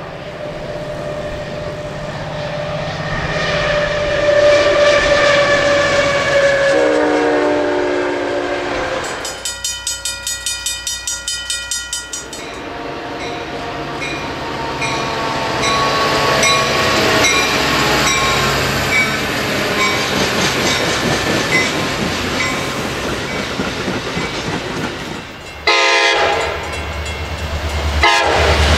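Diesel commuter trains passing and sounding their air horns over rumble and wheel clatter. A horn's pitch falls as a train goes by, then a rapidly pulsing ringing lasts a few seconds, then more horn calls follow. Near the end a horn blasts suddenly and loudly from an approaching locomotive.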